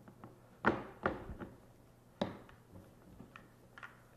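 Plastic filter housing being handled and twisted onto its cap by hand: a few sharp plastic knocks and clicks, three of them stronger, in the first half, with lighter ticks after.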